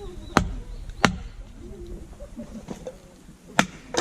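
Three sharp strikes of a blade or tool into firewood, unevenly spaced: wood being chopped or split for a campfire.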